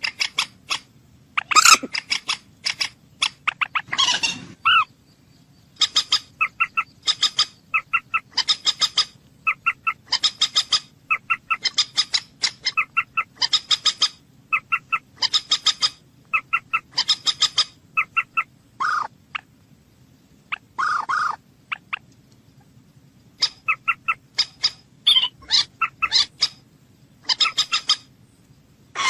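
Common moorhen calling: repeated runs of short, sharp notes in quick clusters, with a few longer, harsher calls about two-thirds of the way through.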